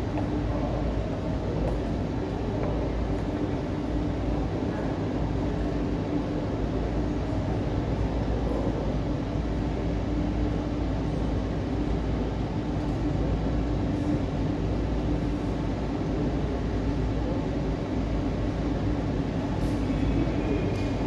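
Steady low rumble with a faint constant hum: the idling engines of a Boeing wide-body twin-jet as it taxis slowly in to the gate.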